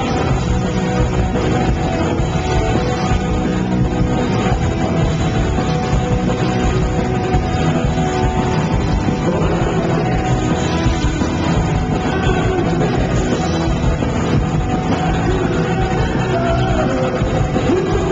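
Punk rock band playing live at full volume: electric guitar, bass and drums driving continuously, with a lead vocal sung over it that stands out near the end.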